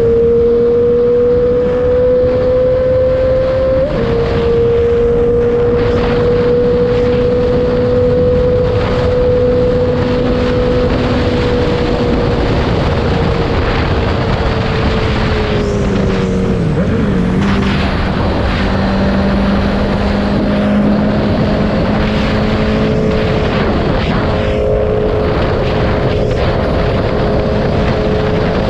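Honda CB650R's inline-four engine running at steady cruising revs through a full aftermarket exhaust with the dB killer removed. The engine note sinks and wavers briefly a little past halfway, then holds steady again.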